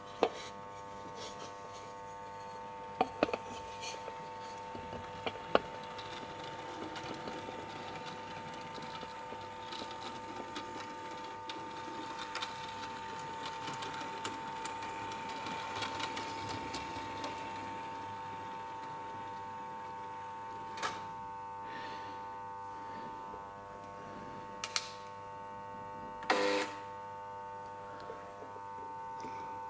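Model steam locomotive's small electric motor whirring steadily as it runs along the layout's track, a little louder in the middle stretch, with a few sharp clicks from the wheels and track.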